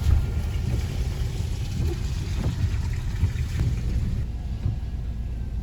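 Steady low rumble of a car, heard from inside the cabin, with a few faint light knocks.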